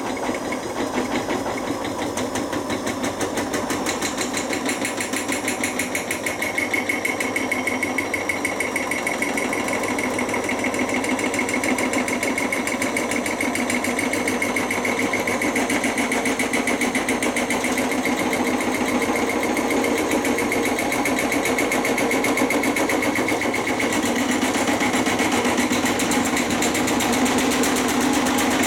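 Beko washing machine spinning with its transit bolts still in, the locked drum shaking the whole cabinet in a fast, steady rattling and hammering that grows slightly louder. The machine walks on the floor as it shakes.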